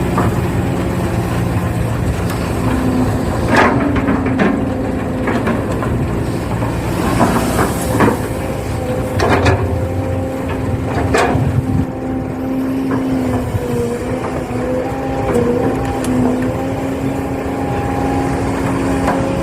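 Small electric motors of an RC excavator whining steadily, the pitch wavering slightly as it works. Several short scraping and clattering sounds come in the first half, as the bucket digs and drops sand.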